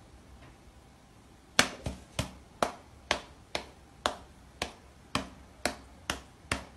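A cat's paw slapping against a person's open hand, about a dozen short, sharp slaps at roughly two a second, starting about a second and a half in.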